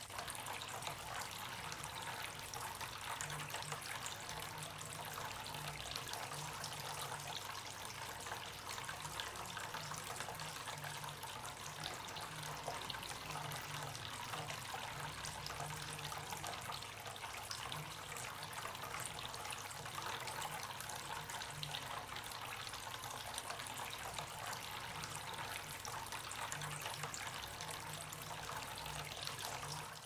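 Terracotta tabletop fountain running: a thin stream of water falls steadily from a clay pot's spout into a terracotta bowl, a continuous trickle.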